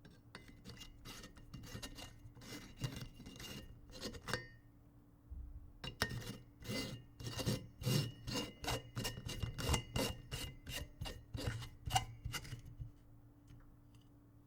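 Light bulb twisted in its socket: two runs of quick grating scrapes with a faint glassy ring, the second run longer and louder, over a faint steady low hum.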